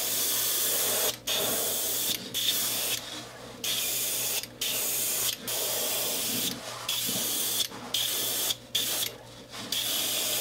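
Gravity-feed airbrush spraying chrome paint onto a wooden lure: a hiss of air and paint in short bursts of about a second, roughly ten of them, as the trigger is pressed and released.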